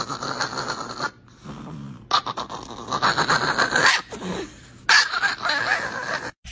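Small Chihuahua growling and grumbling in raspy bouts, three of them with short pauses between.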